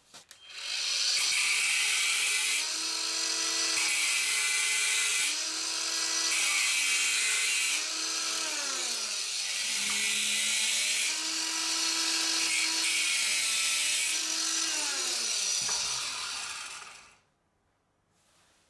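Electric angle grinder with a thin cut-off disc cutting through a hard metal rod held in a vise, a harsh grinding hiss rising and falling with each pass. The motor's pitch sags under load and recovers, then winds down when it is switched off near the end.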